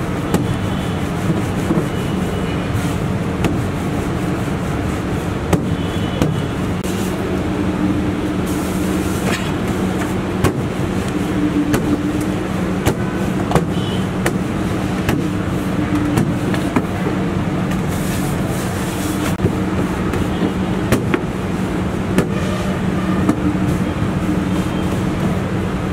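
A steady mechanical hum, with scattered sharp knocks and clicks from a rolling pin and hands working pizza dough on a steel counter.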